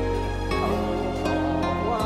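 Background music with slow, sustained held notes that change pitch every so often.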